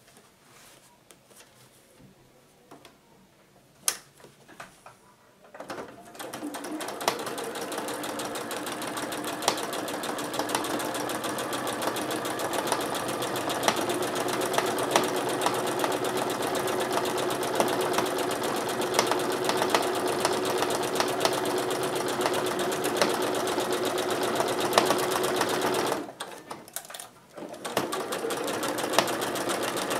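Janome electric sewing machine quilting lines through layered fabric, running at a steady speed. It starts about six seconds in after a click, stops briefly near the end and starts again.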